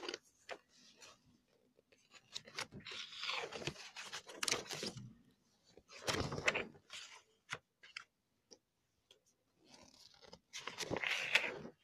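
Handling noise as a paperback picture book is moved about on a carpet: rustling and scraping in three spells, with scattered clicks between them.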